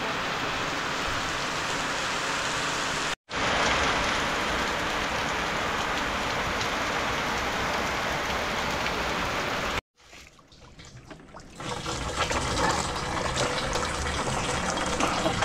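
Steady rain, an even hiss of falling water, cut off abruptly twice, about 3 and 10 seconds in. After the second cut it comes back faintly and builds up again.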